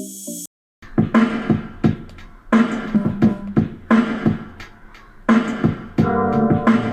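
Music: a few short electronic notes, a brief cut to silence, then a song with a strong drum beat and pitched chords from about a second in.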